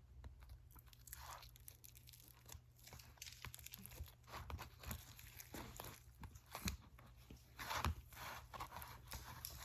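Hands kneading and pulling apart freshly opened, still-sticky butter slime: faint scattered small clicks and soft rustling as the slime stretches and sticks.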